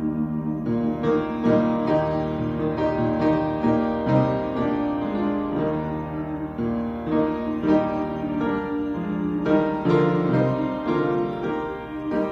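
Solo piano playing chords and a melody.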